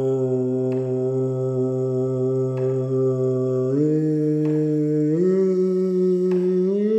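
A man's voice singing long, steady vowel notes into the funnel of a manometric capsule, stepping up in pitch three times like a rising scale. The voice makes the capsule's gas flame flicker, giving a serrated flame pattern whose shape follows the pitch.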